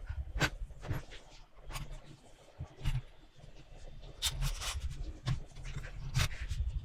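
Metal construction-kit toy truck being handled and its parts fitted by hand: irregular clicks, taps and light metallic rattles, with a few louder knocks.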